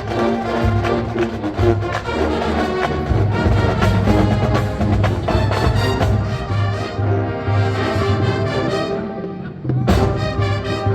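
College marching band playing a funk arrangement, brass over a steady drum and low-brass beat. The high parts thin out briefly before a loud full-band hit about ten seconds in.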